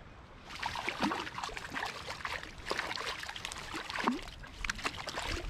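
Hooked trout thrashing and splashing at the water's surface while being played on a fly rod, an irregular run of splashes starting about half a second in.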